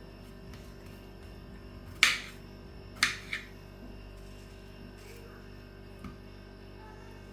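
Two sharp clacks about a second apart, the second followed quickly by a smaller one, over a steady low hum.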